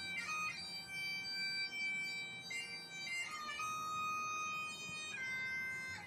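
A bagpipe playing a slow melody of long held notes, with quick grace-note flourishes at the changes between them.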